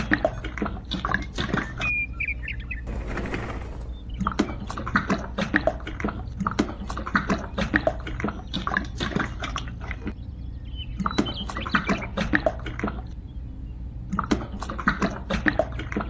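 Wet miniature concrete mix pouring and squelching as it slides out and lands, in dense runs of small clicks and splats broken by short pauses, over a steady low hum.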